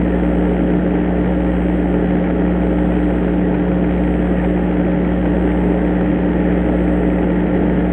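Steady hiss with a low electrical hum from a Foscam IP camera's microphone turned up high in an empty room; no knocks or taps.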